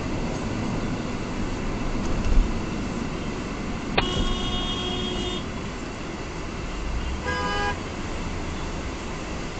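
Car horn honks over steady traffic and road noise heard from inside a car. About four seconds in, a click and then a held honk of about a second and a half; about three seconds later, a shorter honk at a different pitch.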